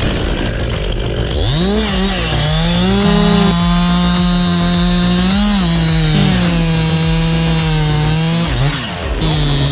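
Gasoline chainsaw cutting wood at high revs, its engine pitch held for seconds at a time, then dipping and rising again a few times.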